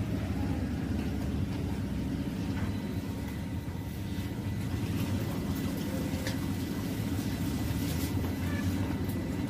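A steady low rumble of outdoor background noise, with a few faint ticks.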